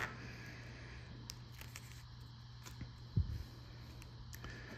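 Quiet handling of paper scratch-off lottery tickets as one is swapped for the next: a few faint clicks and a short soft thump about three seconds in, over a steady low hum.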